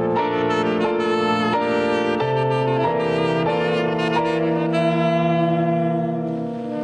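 Free-improvised jazz: a tenor saxophone plays a short run of held notes with vibrato, then sustains one long note through most of the rest, over sustained chords on a Nord Stage electric piano.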